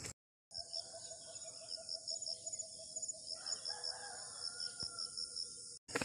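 A rooster crows faintly about halfway through, over a steady high-pitched insect chorus with regularly repeated chirps. Before the crow, a low call pulses several times a second.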